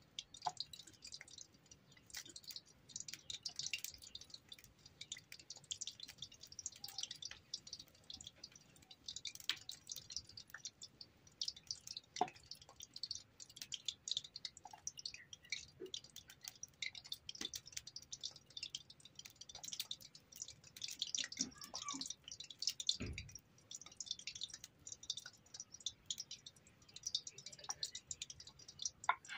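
Faint, irregular crackling and small pops from the cooking stove where a kadai of oil is heating for frying luchi, with a few soft knocks.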